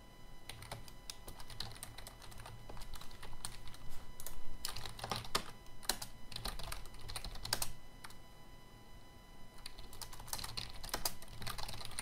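Typing on a computer keyboard: irregular runs of key clicks, with a pause of about a second and a half a little past the middle.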